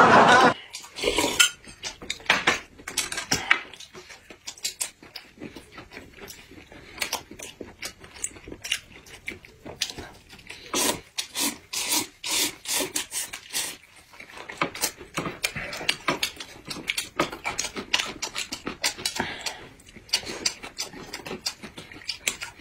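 Close-up eating sounds: noodles being slurped in repeated short noisy pulls, among many small clicks and smacks of chewing and chopsticks on a bowl.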